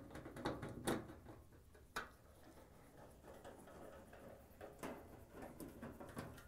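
Faint clicks and taps of a nut driver taking screws out of a washer's sheet-metal rear access panel, a handful of separate small knocks.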